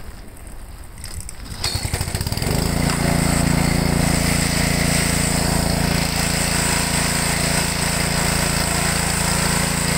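Honda GC160 single-cylinder engine on a pressure washer, pull-started: it catches about two seconds in, then runs steadily while the pump sends out a spraying water jet. Running again after its carburetor was removed and cleaned to cure a no-start, and it seems to be okay.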